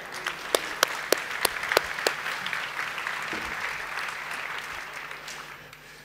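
Audience applauding, with a few sharp individual claps standing out in the first couple of seconds, then dying away toward the end.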